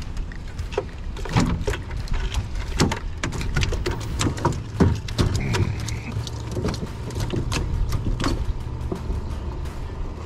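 Irregular knocks and clicks of a hooked redfish and fishing tackle being handled in a small boat as the fish is landed, over a steady low rumble.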